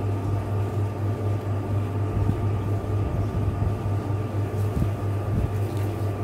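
A steady low electrical or mechanical hum, as of a fan or appliance running, with a few faint soft sounds of fabric being handled.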